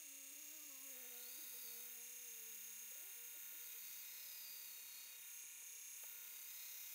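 Faint 2x72 belt grinder running slowly with a fine 600-grit ceramic belt while a knife edge is sharpened on it: a low hum that wavers and slides lower over the first few seconds, over a steady hiss.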